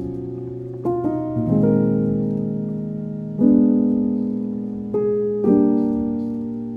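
Slow, calm solo piano music: soft chords struck every second or two and left to ring, each fading slowly before the next.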